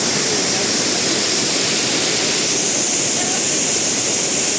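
Waterfall in monsoon flow: falling water rushing loud and steady.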